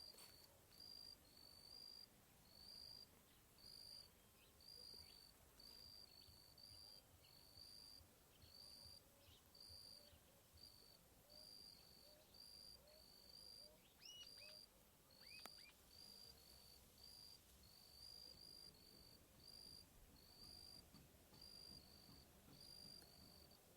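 Crickets chirping faintly in a steady, even rhythm of short high-pitched chirps, roughly two a second. A few brief falling whistles sound about midway through.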